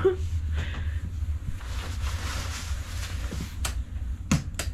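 Steady low drone of a ferry's engines heard inside a small cabin, with three sharp clicks in the last second or so, as of a switch or fitting being worked.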